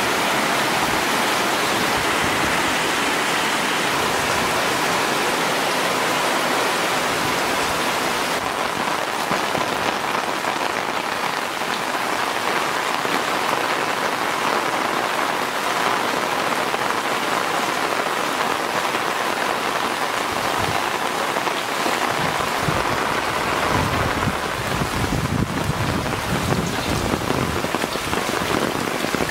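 Steady heavy rain falling on leaves and the ground, a dense, even hiss of drops.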